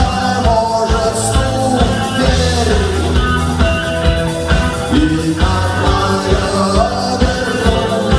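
Rock song played by a band, with a steady drum beat under held melodic notes.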